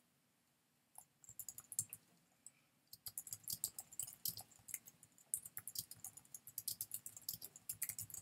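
Typing on a computer keyboard. A short run of keystrokes comes about a second in, then after a pause there is fast, continuous typing from about three seconds in.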